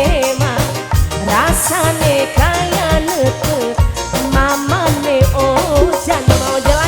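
Tarling dangdut band playing live: a wavering, ornamented melody that slides up and down over a steady drum and bass beat.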